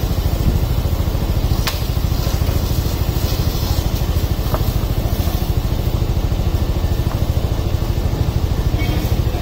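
An engine idling steadily, giving a fast, even low throb.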